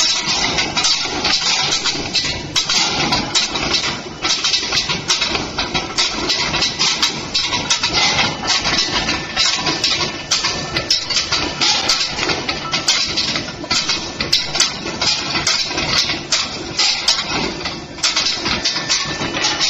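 Steel ball skew rolling mill running, its spiral rolls forming a red-hot round billet into steel balls: a steady machine din with frequent, irregular sharp knocks.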